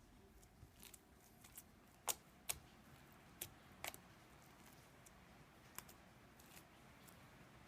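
Slime mixed with small play-dough balls being handled, giving scattered sharp clicks and pops, about ten of them at uneven intervals, over near silence.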